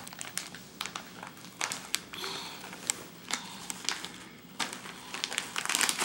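Plastic snack bag crinkling as a baby handles it: scattered crackles, coming thicker near the end.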